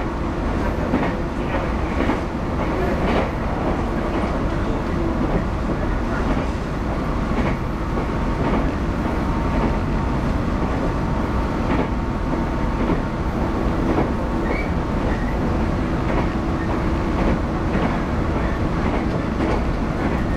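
A JR 115 series electric train heard from inside the carriage, running at speed with a steady rumble of wheels on rail. The wheels clack over rail joints now and then.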